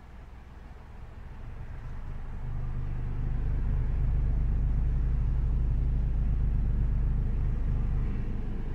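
A 12-inch subwoofer in a homemade 8th-order bandpass enclosure plays a very low sine-wave test tone, swept between about 21 and 27 Hz, heard inside the car as a deep rumble. It swells louder from about a second in and holds steady, with a fainter higher hum riding on it. The box seems loudest around 25 Hz.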